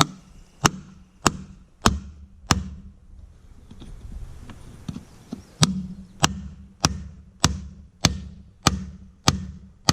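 Hammer blows on a steel socket extension used as a drift, driving a worn wheel bearing out of a side-by-side's spindle: sharp metallic strikes with a short ring, about one every 0.6 s, five, a pause of about three seconds, then eight more.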